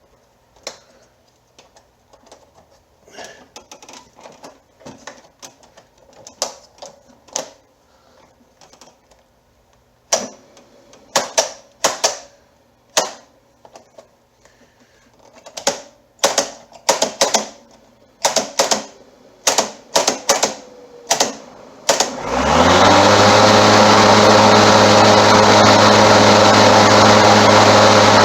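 A run of sharp clicks and knocks, then about 22 seconds in the Homelite electric lawn mower's motor, running on a 24-volt A123 lithium pack, spins up quickly and runs steadily with a loud, even hum.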